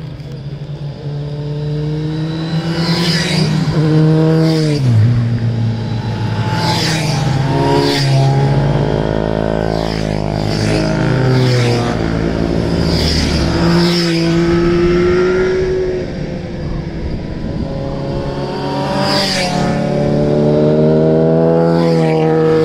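Superbikes with loud full aftermarket exhaust systems riding up a winding road one after another, engines revving, the pitch climbing and dropping again and again.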